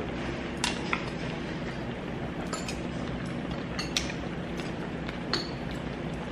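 Metal tongs and kitchen scissors clicking and clinking against a seafood hot pot while the seafood is cut up: about seven sharp clicks, spread irregularly over a steady low background hum.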